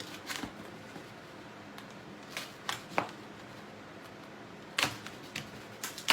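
A small piece of styrofoam being handled and fitted against a plastic box: about eight short, scattered scrapes and knocks over a faint steady hum.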